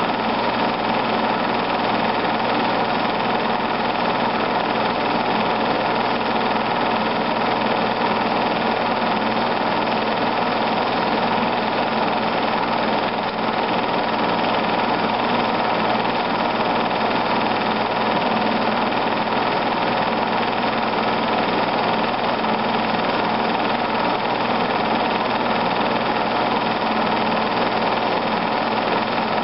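Film projector running steadily, a constant mechanical whir and clatter that holds the same level throughout.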